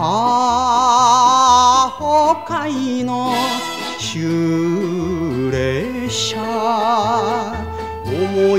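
Music: the instrumental interlude between verses of a Japanese kayōkyoku song, a melody with wide vibrato over a bass line that steps along at a steady pace.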